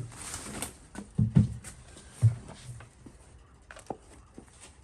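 Handling noise from an object being lifted and examined: a brief rustle, then a few dull thumps about a second and two seconds in, followed by faint scattered clicks.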